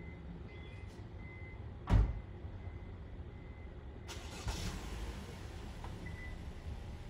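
Outdoor background with a low rumble, typical of traffic, and a single loud thump about two seconds in. A steady hiss comes in suddenly about four seconds in, with a few faint short high chirps now and then.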